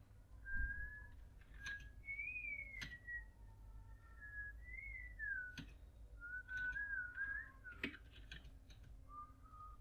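A person whistling a soft, wandering tune, one note gliding up and down at a time, with a few sharp clicks in between.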